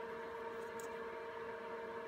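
Steady low electrical hum with a faint whine and hiss, and a faint light click just under a second in as the wire ends and test clip are handled.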